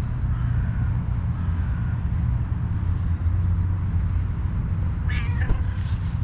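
A cat meows: two faint calls in the first two seconds, then a louder call about five seconds in that falls in pitch. A steady low rumble runs underneath.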